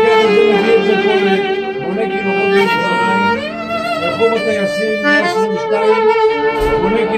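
Violin and piano accordion playing a melody together, with the violin carrying the tune.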